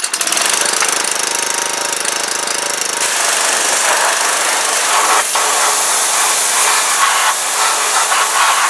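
Pressure washer running steadily, its high-pressure water jet hissing as it sprays the soaped mower deck; the spray gets louder about three seconds in. The washer is running after a winter in a cold shed, showing its winterization worked.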